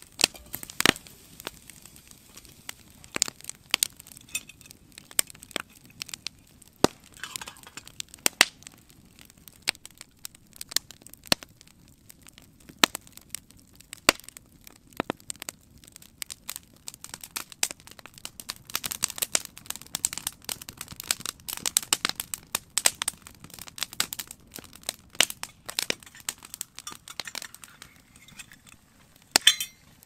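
Campfire of split dry spruce crackling, with irregular sharp snaps and pops over a low steady hiss. The snapping comes thickest about two-thirds of the way through.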